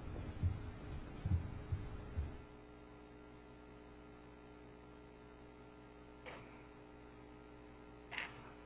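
Steady electrical mains hum on a courtroom audio feed, with a few dull low thumps in the first two seconds and two faint clicks later on.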